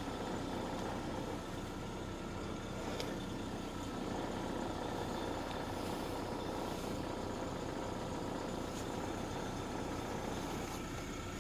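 Lada Vesta SW Cross running steadily, with a couple of faint knocks, the kind the owner places in the gearbox area.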